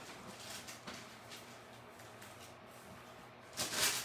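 Clothes iron being pushed back and forth over parchment paper, faint soft rustling scrapes, with a louder papery rustle near the end.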